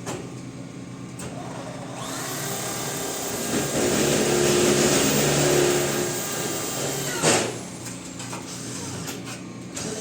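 An electric motor starts about two seconds in and runs steadily for about five seconds. It stops with a sharp knock, and its whine falls away as it spins down.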